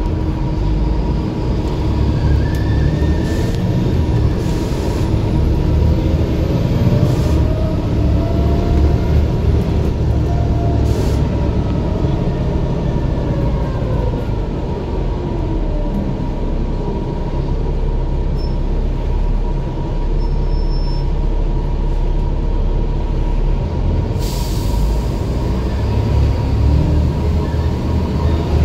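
Volvo B7 double-decker bus's six-cylinder diesel engine and driveline under way, heard inside on the upper deck: a loud, continuous rumble with whines that rise and fall as it pulls away and changes speed. A short hiss of air near the end, typical of the air brakes releasing.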